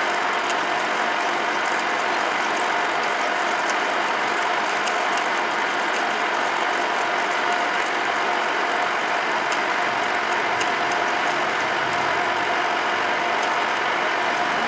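Metal lathe running under a turning cut, the tool peeling curly chips off a metal shaft held between chuck and tailstock centre. A steady machining noise with a constant mid-pitched hum and scattered faint ticks.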